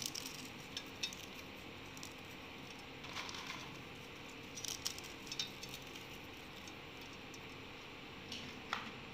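Crisp fried papdi being crushed by hand and dropped onto food in a steel bowl: light crackles and small ticks in a few short clusters, over a faint steady hum.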